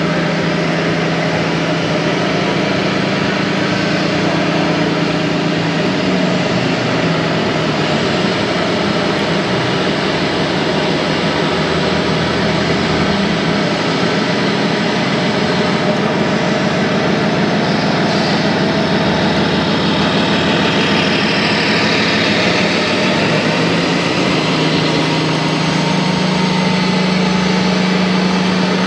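Simulated diesel engine sound of a radio-controlled Kenworth heavy-haul truck model, running steadily at a low, even pitch. About three-quarters of the way through, a higher whine dips and rises.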